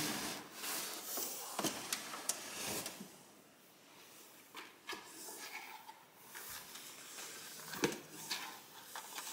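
Rustling and scraping with light knocks and clicks, busiest in the first three seconds, quieter after, with one sharp knock near the end.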